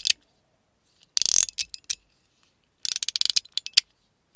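Fidget slider being slid back and forth, its ball-and-spring detents clicking in quick rattling bursts: a short burst about a second in and a longer run of rapid clicks around three seconds.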